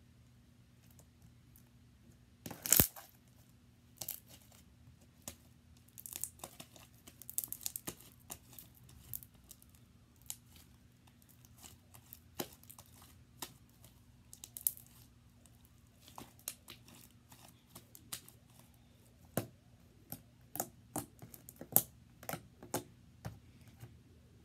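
Slime being squished and stretched by hand, giving irregular sticky crackles and small pops, with one louder pop about three seconds in.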